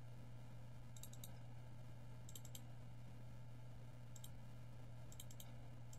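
Faint computer mouse clicks, several of them in quick pairs like double-clicks, over a low steady hum.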